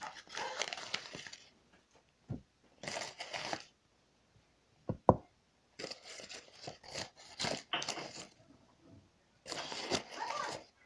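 Spooning wheat flour into containers: several short bursts of rustling and scraping, with a few sharp knocks of the spoon against the containers.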